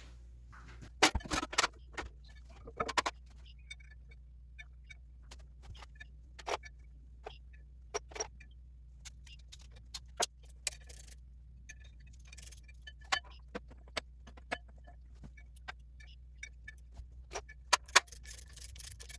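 Metal bolts and hand tools clinking and knocking as they are handled, in scattered sharp clicks, with a few louder knocks about a second in and near the end, over a low steady hum.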